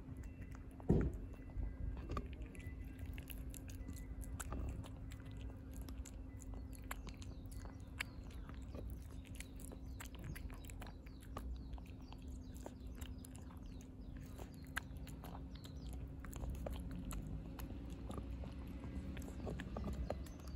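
A domestic cat chewing wet cat food close up: a steady run of small, quick wet clicks and smacks, with one louder knock about a second in.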